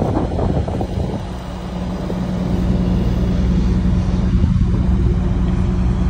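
A vehicle engine running steadily at a constant pitch. About a second in it takes over from gusting wind on the microphone.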